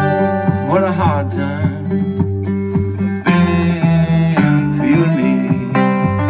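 A small live band playing: strummed acoustic guitar over electric bass, with congas and harmonica.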